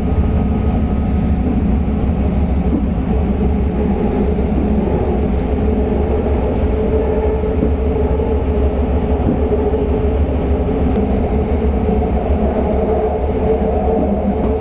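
BART subway train running at speed, heard from inside the car: a loud, steady rumble with a steady whining tone over it, starting suddenly.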